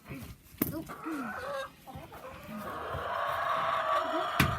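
Domestic hens clucking in a coop, with a long drawn-out call in the second half. Two sharp knocks, one under a second in and one near the end.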